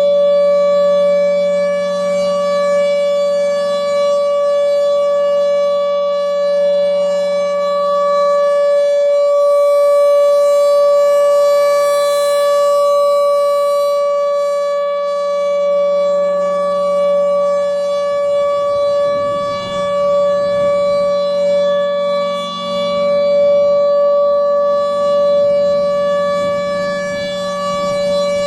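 Federal Signal Thunderbolt 1000 outdoor warning siren sounding its steady alert signal during a test: one held, unwavering pitch with gentle swells in loudness.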